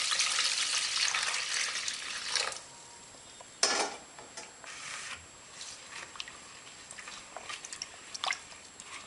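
Rice being washed in a bowl: tap water runs for about two and a half seconds, then there is a short splash a little over a second later, followed by light clicks and swishes from the grains and the bowl.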